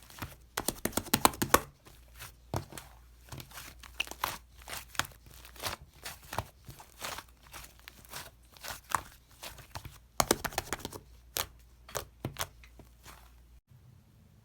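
Slime being squished and stretched, giving irregular sticky clicks and pops. The crackling is densest about a second in and again around ten seconds in, and it cuts off shortly before the end.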